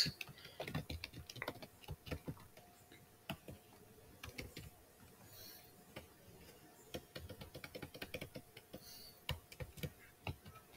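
Computer keyboard being typed on: faint, quick, irregular keystrokes, thinning out for a couple of seconds mid-way.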